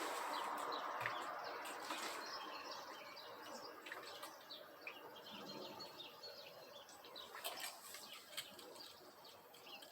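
Clean water poured into a chain-cleaner reservoir, a faint splashing hiss that tapers away over the first few seconds. After that, faint birds chirping.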